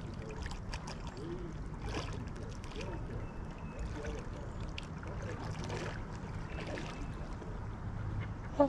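Waterfowl calling softly and repeatedly over a steady low rumble, with one louder short honk near the end.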